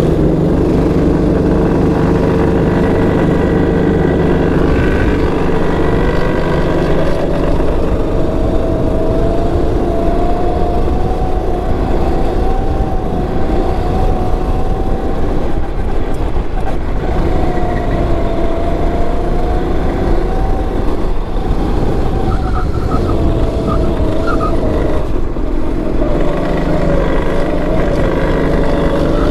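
Go-kart engine heard on board, running low and steady for the first few seconds, then climbing in pitch as the kart speeds up onto the track. Its pitch rises and falls with the throttle after that, dipping twice as the driver lifts off, about halfway through and again near the end.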